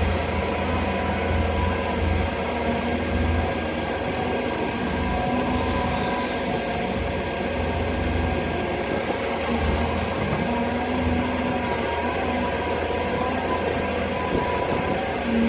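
Hydraulic excavator working: the diesel engine runs steadily with a low rumble under a steady whine.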